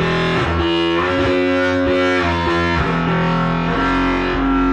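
Eurorack modular synthesizer patch playing a line of sustained notes that shift in pitch every half second to a second. Its modulation is driven by an Acid Rain Technology Maestro clocked modulation controller.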